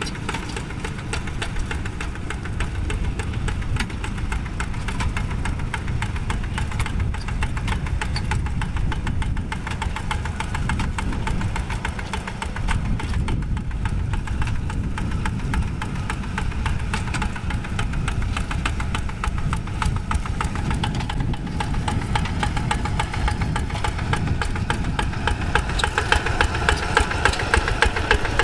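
Single-cylinder Kubota diesel of a Quick G1000 Boxer two-wheel hand tractor running steadily under load as it pulls a plow, with a rapid, even chugging. It grows louder near the end.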